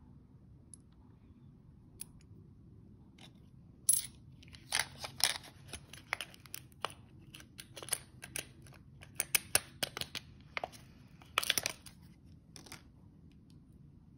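A clear plastic coin capsule and a thin clear plastic sleeve being handled: a run of sharp plastic clicks and crinkles that starts about four seconds in, is loudest at its start and again a few seconds before the end, and stops shortly before the end.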